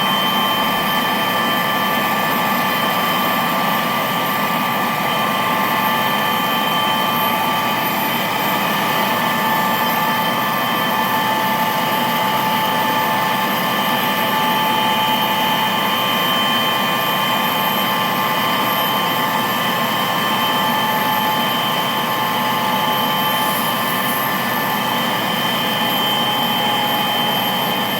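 Steady engine drone with several constant high whining tones over a rushing noise, unchanging in pitch or level.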